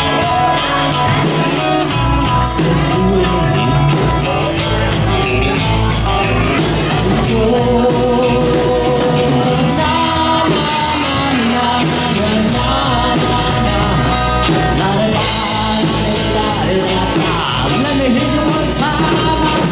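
Live rock band playing: electric guitar, electric bass and drum kit with steady cymbal beats, and a voice singing at times.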